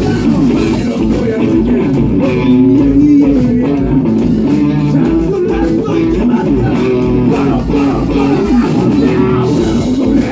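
Band music led by guitar over bass, with a steady beat.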